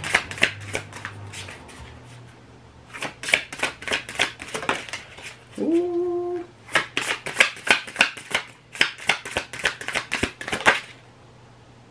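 Tarot deck being shuffled by hand: rapid clicking riffles of the cards in three spells with short pauses between them. A brief tone that rises and then holds sounds about halfway through.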